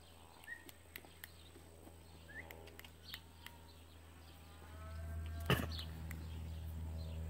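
Faint outdoor ambience: a few short chirps and scattered light clicks over a low rumble, which grows louder about five seconds in, followed by one sharp click.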